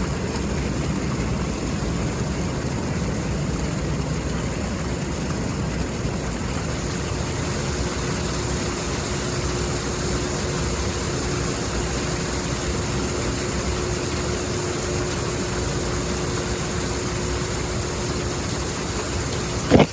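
Steady rushing of water pouring out of a fire sprinkler system's open drain as the system's pressure is let off. A faint steady tone joins about eight seconds in.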